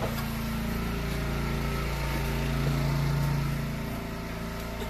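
An engine running steadily, swelling slightly in the middle and easing off again.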